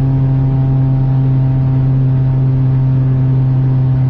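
Volkswagen car's engine heard from inside the cabin, holding a steady high-speed cruise at over 200 km/h: an unchanging drone with tyre and wind noise underneath.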